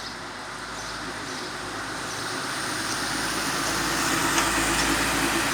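A road vehicle approaching, tyre hiss and engine hum growing steadily louder toward the end.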